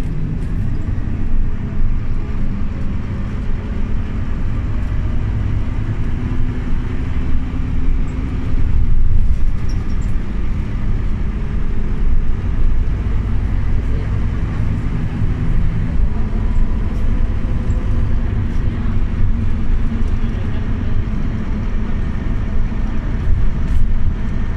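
Scania OmniLink city bus heard from inside the cabin while running: a steady low engine and road rumble whose engine note shifts now and then.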